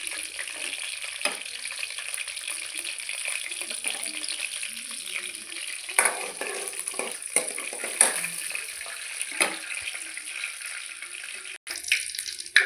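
Whole spices (cinnamon and cloves) sizzling steadily in hot ghee in a pan, with a few sharp clinks of a spoon stirring them.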